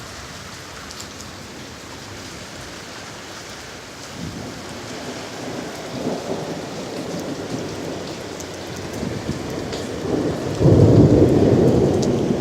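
Steady rain with a low rumble of thunder that builds from about four seconds in and swells suddenly louder near the end.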